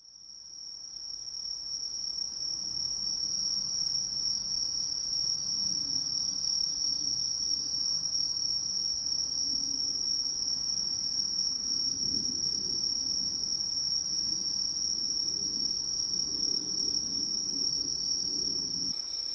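Chorus of crickets trilling steadily as one continuous high-pitched tone, with a fainter higher band above it, fading in over the first two seconds.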